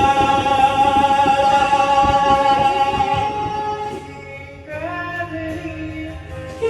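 A singing voice holding one long high note for about four seconds, then, after a brief dip, a new phrase of shorter notes stepping at a lower pitch.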